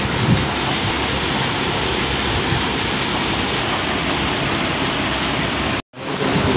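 Steady rushing air noise from electric room fans, with a faint high whine on top. It breaks off abruptly for a moment near the end.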